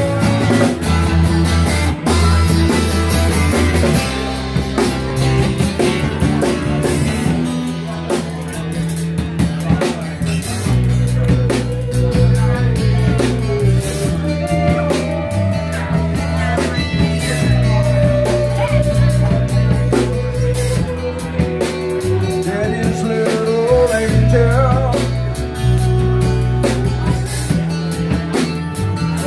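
A band plays a blues-rock song with electric guitar, bass and drum kit at a steady beat, the bass moving between held notes under a wavering lead line.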